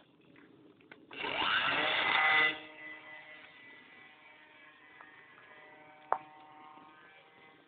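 RC model airplane's motor opening up to full throttle about a second in, its whine rising in pitch. After about a second and a half it drops off sharply to a fainter steady drone that fades as the plane flies away after takeoff.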